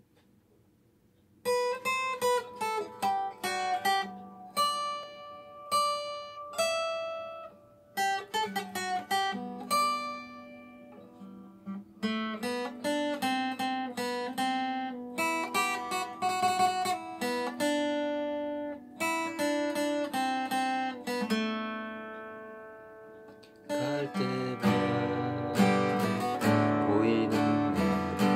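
Acoustic guitar playing an instrumental introduction: single picked melody notes that ring out, with bass notes added partway through, then fuller strummed chords near the end.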